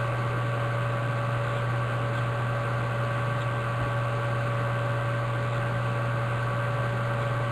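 Steady electrical hum with a few constant whining tones over an even hiss, unchanging throughout.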